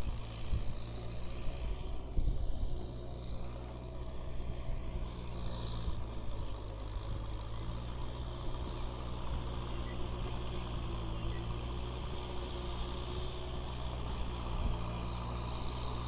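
Kubota M6040SU tractor's diesel engine running steadily as the tractor drives through a muddy field, with a few louder knocks and gusts in the first couple of seconds.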